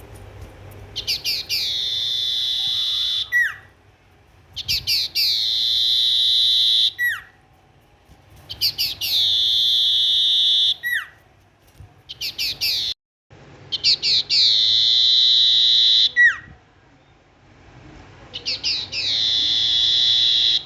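A songbird kept by bird fanciers, the sirtu, singing persistently: about five repeated phrases, each a burst of quick notes running into a long, even, buzzy note of about two seconds, ended by a short downward-sweeping whistle.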